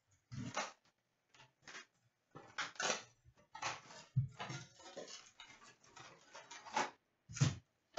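Cardboard retail box of hockey card packs being torn open by hand and the packs pulled out: an irregular run of short tearing, rustling and knocking sounds.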